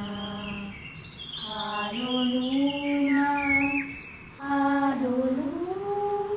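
Young girls' voices singing a wordless melody in long, held notes that glide from one pitch to the next.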